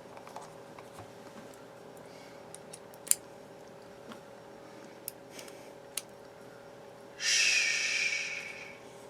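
Small sharp clicks and taps of pocketknife parts and a small screwdriver being handled as the pivot screw goes back in. Near the end, a louder breathy rush of noise lasting about a second and a half, fading out.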